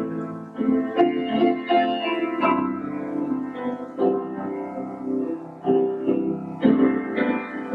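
Grand piano playing a slow piece, with notes and chords struck about once a second and left to ring.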